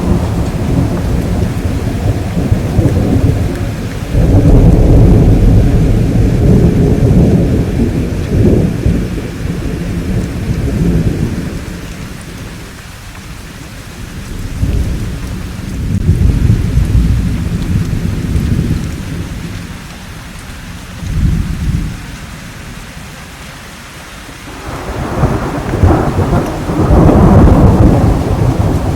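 Thunderstorm: several long rolls of thunder swelling and fading over steady rain. The loudest rolls come about four seconds in and again near the end, with a short sharper rumble about three-quarters of the way through.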